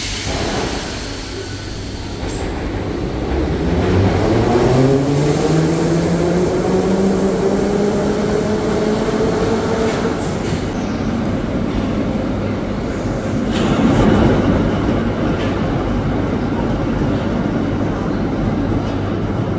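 Sokolniki retro metro train pulling away from a platform: the traction motors whine, rising in pitch over several seconds and levelling off as it gathers speed, over the rumble of wheels on rail. In the second half there is a steady rumble of a metro train running along the platform.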